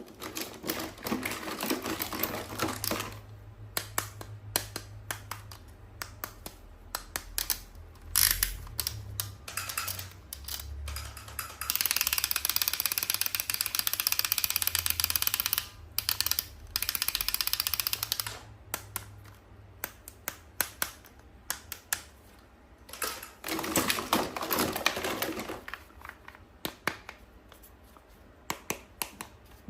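Toys and their packaging being handled in a toy unboxing: many quick clicks and taps like light typing. Several stretches of rustling come in, with the loudest and longest about twelve to eighteen seconds in.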